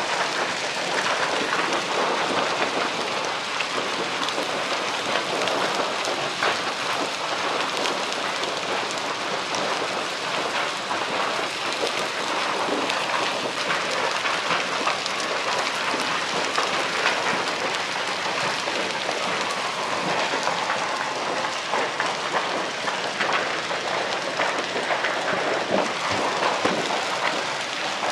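Large fire in stacks of wooden pallets burning, with dense, steady crackling.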